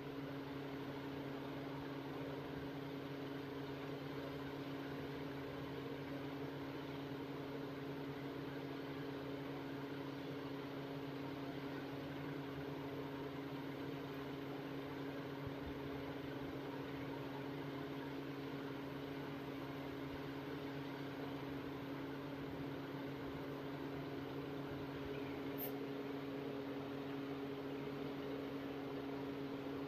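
Steady low hum of an electric motor with an even hiss over it, unchanging throughout. One faint tick comes near the end.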